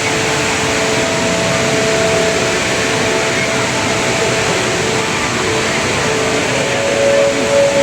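Jewel Changi's indoor waterfall, a steady rush of falling water, with a few faint steady tones over it.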